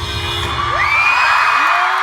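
A K-pop song's amplified backing track cuts off about half a second in, and the concert crowd breaks into screams and cheering, with several high screams that rise and then hold.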